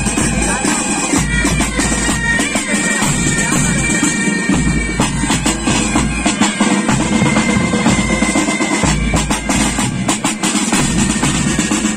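A pipe band playing: bagpipes sound a melody over their steady drones, with rapid snare drum strokes and a booming bass drum beat underneath.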